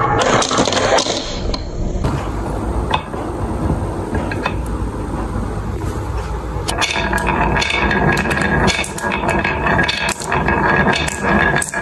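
Glass marbles rolling down carved wooden wave tracks, rattling in the grooves and clicking against the wood and one another. From about seven seconds in, many clicks crowd together as a stream of marbles comes down.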